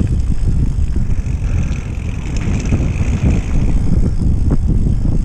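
Mountain bike ridden over a dirt trail: a steady low rumble from the tyres and wind, with scattered clicks and rattles as the bike goes over bumps.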